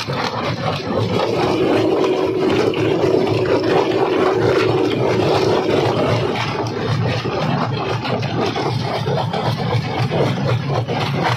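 Large jaw crusher running under load, its jaw grinding and cracking big stone blocks, over a steady low machine drone. A held tone rises out of the noise from about a second to six seconds in.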